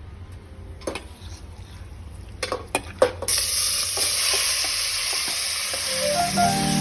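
A few utensil knocks against a cooking pot, then food goes into hot fat about halfway through and starts sizzling loudly and steadily. Music comes in near the end.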